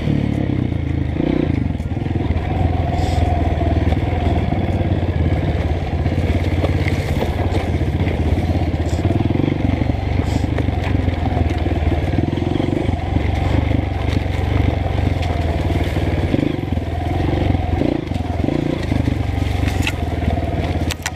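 Honda CRF230F's single-cylinder four-stroke engine running steadily at low revs on engine braking down a dirt trail, with the tyres crunching over loose ground.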